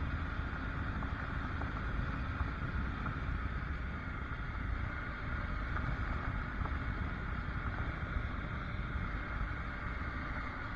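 Triumph Tiger adventure motorcycle's three-cylinder engine running steadily at low road speed, with the tyres crunching over gravel.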